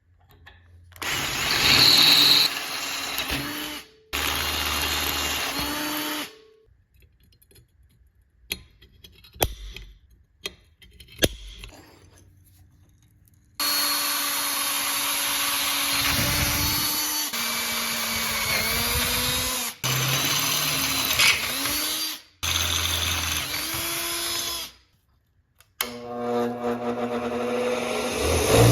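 Handheld power tool running in several runs of a few seconds each, stopping and restarting, its pitch sagging and recovering as it bears on the work. In a pause in the middle come a few sharp knocks.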